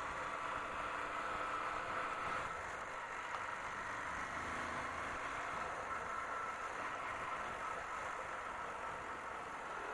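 Motorcycle running at low road speed, a quiet, steady engine and road noise with a faint steady whine, picked up by the bike-mounted camera.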